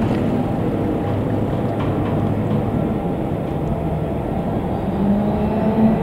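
Heavy machinery running with a steady hum, with a tone that rises and grows louder about five seconds in.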